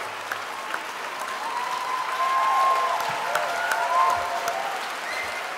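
Audience applauding. The clapping grows louder about two seconds in and eases off toward the end.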